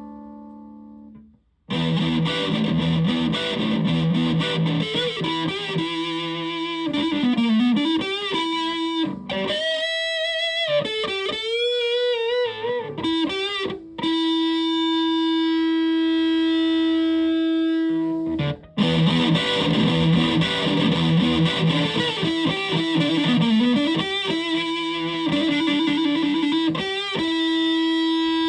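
Electric guitar with humbucker pickups played through a heavily modified Buzzaround fuzz pedal (the Buzz-a-drive), giving a thick, distorted fuzz tone. The playing moves between riffs and chords, wavering bent notes with vibrato, and long sustained notes. A brief pause comes about a second in, and another short break comes after a note held for several seconds.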